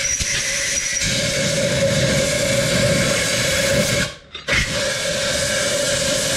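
A spray nozzle hissing steadily, with a steady tone under the hiss, as jackhammer parts are sprayed to blow the dust out. It cuts off briefly about four seconds in, then starts again.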